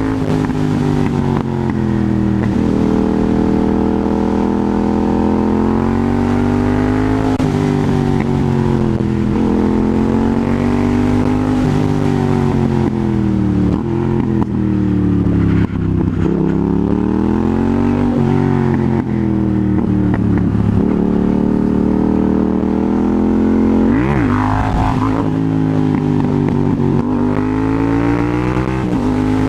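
Yamaha MT-07's 689 cc crossplane parallel-twin engine under way, its revs rising and falling again and again as the bike accelerates, shifts and slows through a run of bends. About three-quarters of the way in there is a sharp, quick rev rise and drop.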